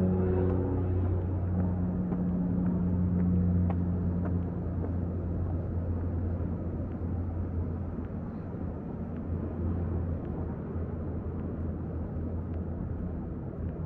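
Steady low rumble of outdoor city ambience, typical of distant traffic, with faint light ticks scattered through it. A lingering musical drone fades out in the first few seconds.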